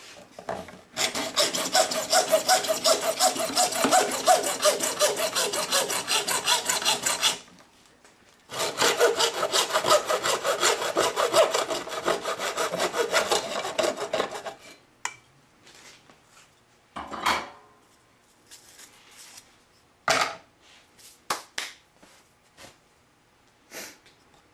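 A hand tool working 4-inch PVC pipe in fast back-and-forth strokes, in two long runs with a short break between, then a few clicks and knocks as the pipe is handled.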